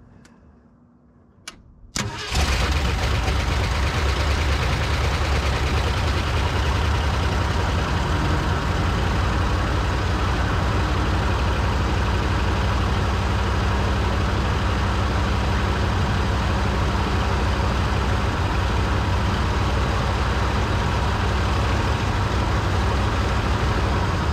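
1973 Ford F-350's 390 V8 with a two-barrel carburettor firing up: a click or two, then the engine catches about two seconds in and runs steadily.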